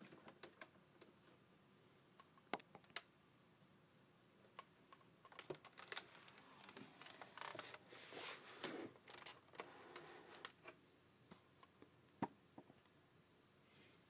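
Near silence in a small room, broken by scattered faint single clicks and knocks. A few seconds of soft rustling handling noise come around the middle.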